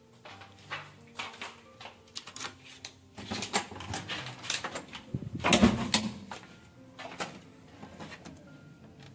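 Clicks and knocks of a hotel room door's lock and lever handle being worked, with a louder thump a little past halfway through.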